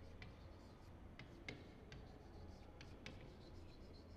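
Chalk writing on a chalkboard: faint scratches and sharp taps of the chalk strokes, about eight ticks spread irregularly through, over a low steady hum.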